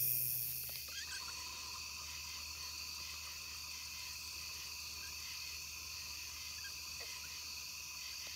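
Night-time chorus of crickets and other insects: a steady, high-pitched trilling in several pitches at once, with a faint regularly pulsing call beneath it.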